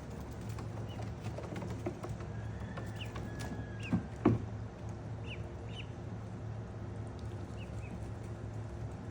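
Ducklings peeping: short, high, scattered peeps over a steady low hum. Two sharp knocks come about four seconds in.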